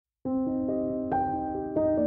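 Background music: soft keyboard chords starting about a quarter second in, held notes with a few new notes struck over them.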